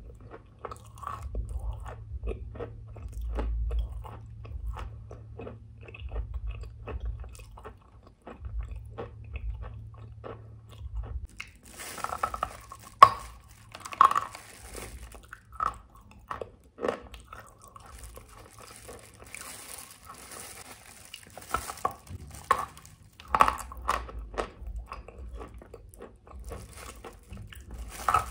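A piece of white chalk being bitten and chewed close to the microphone: a steady run of small crisp crunches, with louder sharp bites around the middle and again near the end.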